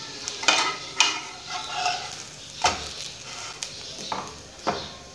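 A metal slotted spatula scrapes and taps against a nonstick frying pan several times, pressing a sandwich down as it toasts. Faint sizzling of ghee runs underneath.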